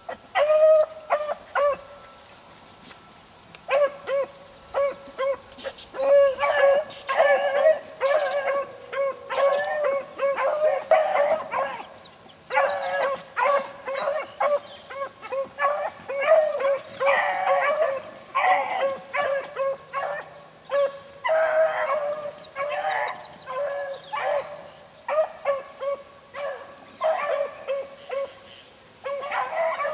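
Beagles baying on the trail of a cottontail rabbit they are running: repeated short pitched bays, about two a second, starting about half a second in, breaking off briefly, then going on with barely a pause.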